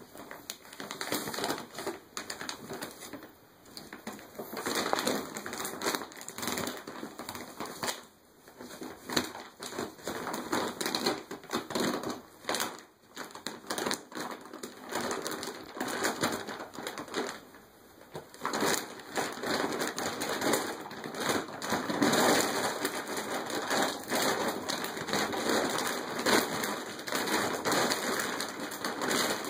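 Empty plastic dog food bag crinkling and rustling as a dog roots around inside it with its head in the bag. The crackling comes in irregular spells with brief lulls.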